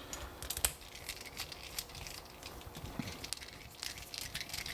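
Handling noises at a workbench: scattered light clicks and rustling as a Phillips screwdriver is fetched and the small padlock is handled.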